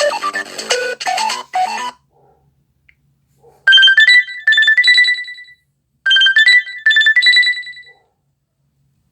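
Classic LG ringtones playing from the LG G8 ThinQ's loudspeaker. A busy multi-note melody ends about two seconds in. After a pause, a short high chime of stepped, rising notes plays in two quick phrases, then repeats once.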